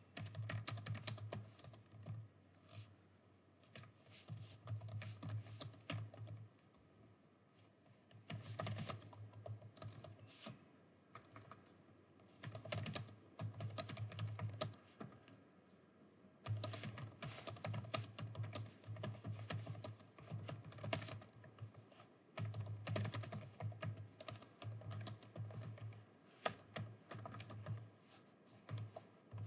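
Typing on a computer keyboard: rapid runs of key clicks in bursts, with short pauses between them.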